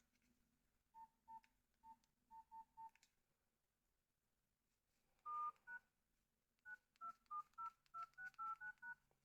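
Nokia 2720a phone's keypad tones, faint: six short beeps at one pitch, then a quick run of two-tone dialing tones at changing pitches as keys are pressed.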